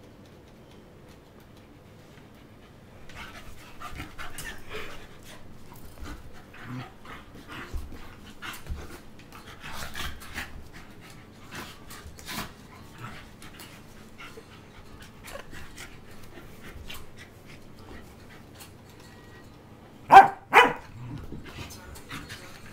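Two Pembroke Welsh Corgis play fighting, not truly fighting. After about three seconds of quiet there is a run of short, rough dog vocal bursts and panting, then two loud barks close together near the end.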